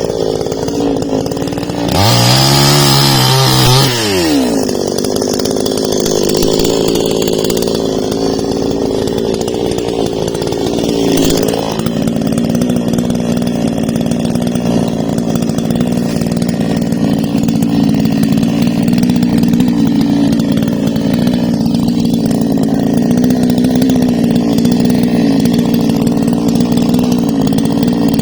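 Husqvarna two-stroke chainsaw running continuously. About two seconds in it is revved louder and higher, then its pitch falls away over a second or two. After that it runs at a steady, lower speed.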